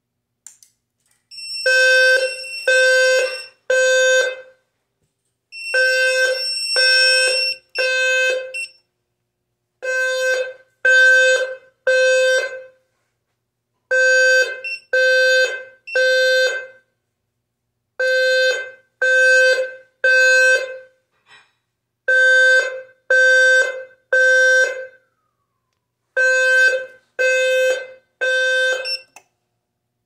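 Fire alarm sounder going off in the temporal-three evacuation pattern: three low-pitched tones, a pause, then three again, repeating seven times. This is the standard signal of a fire alarm.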